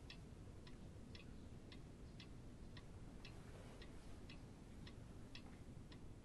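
Wall clock ticking steadily and quietly, about two ticks a second.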